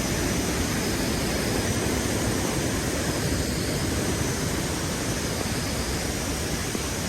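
Waterfall and mountain stream rushing: a steady, even roar of falling water.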